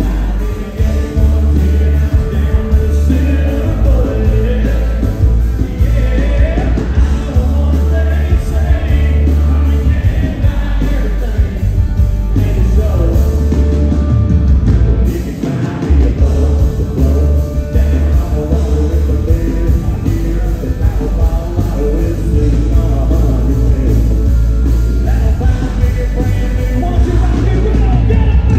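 Live country-rock band playing loudly with a male lead vocal: electric guitar and a full band with a heavy, booming low end.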